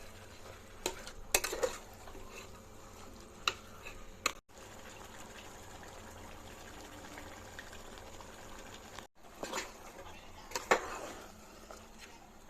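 Biryani pot on the stove: liquid bubbling with a steady low hiss, and several short sharp knocks of a utensil against the pot.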